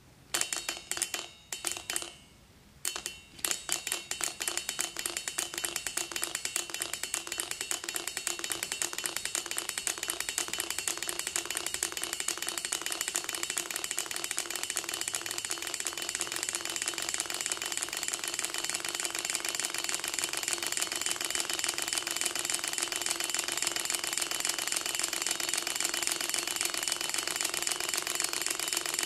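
Gatling six-cylinder Ringbom Stirling engine running on its own: a fast, even clatter of its free displacers clicking back and forth, with a light metallic ringing over it. It starts with two short bursts, pauses briefly, then runs continuously and grows slightly louder.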